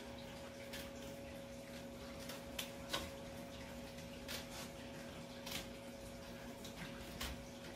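Faint, scattered light clicks and rustles of plastic mesh being handled, about ten at irregular intervals, over a steady low electrical hum.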